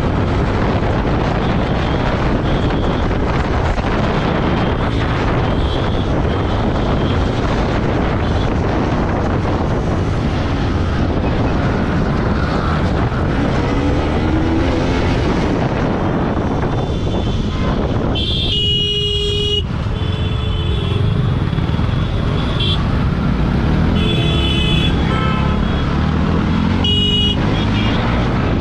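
Motorcycle riding through city traffic: a steady rush of wind and engine noise, with vehicle horns honking several times in the second half, the longest lasting over a second about two-thirds of the way through.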